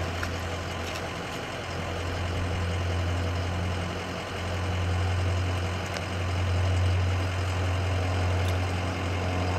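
Ambulance engine idling: a steady low hum, with a few faint clicks.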